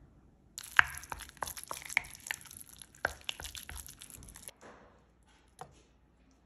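Wooden spoon stirring a thick Greek yogurt sauce in a glass bowl: wet squelching with quick, irregular knocks and scrapes of the spoon against the glass, stopping after about four seconds. A single light click follows about a second later.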